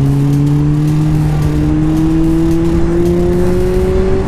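Sport motorcycle engine pulling steadily under acceleration, its pitch rising slowly, with a light dip at the very end, over wind rush on the microphone.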